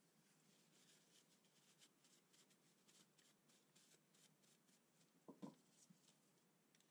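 Faint rustle of a cloth rubbing over the steel base of a surface gauge, followed by two soft knocks a little past five seconds in.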